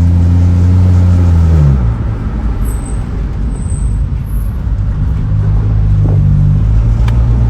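Pickup truck engine and road noise heard from inside the cab: a steady low engine drone that eases off about two seconds in, then tyre and road rumble, with the engine note picking up again near the end.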